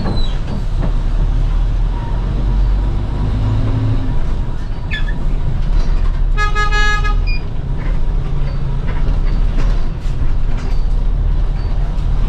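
City bus engine running with a steady low drone, and a vehicle horn gives one toot, under a second long, about six and a half seconds in.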